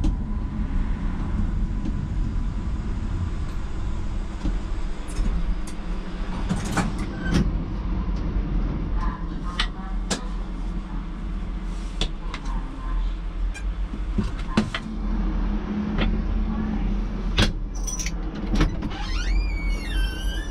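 Tram running, heard from on board: a steady low rumble with scattered sharp clicks and knocks. Near the end comes a high, wavering metallic squeal that falls in pitch.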